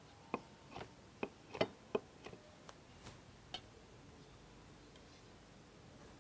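Kitchen knife tapping against a wooden cutting board while slicing a rolled pandan cake into small pieces: a dozen or so short, irregular knocks that stop after about three and a half seconds.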